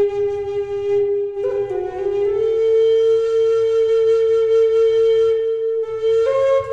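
Low D Native American flute of Western cedar playing a slow solo melody: a long held note, a short run of quick ornamented notes about a second and a half in, then a longer held note a little higher, stepping up again near the end.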